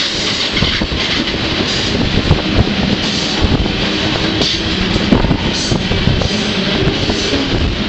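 Moving freight train heard from on board: a steady rumble with irregular clanks and clatter of the wheels and cars.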